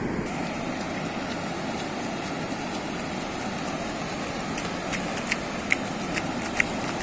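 Steady roar of ocean surf breaking on the beach, with wind buffeting the microphone. From about four and a half seconds in, a quick run of sharp splashy ticks close by.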